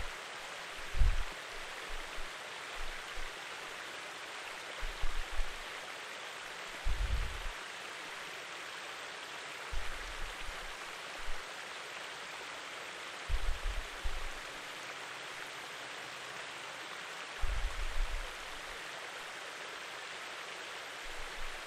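Steady rushing of a flowing stream, even and unbroken, with soft low bumps every few seconds.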